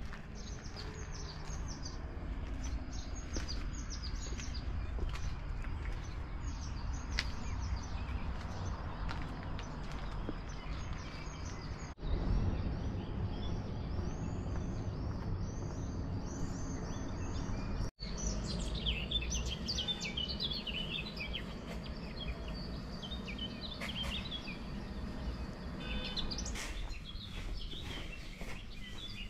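Small birds chirping in short high calls over a steady low background noise, the chirping becoming louder and busier in the last third. The sound breaks off twice for an instant, where the recording is cut.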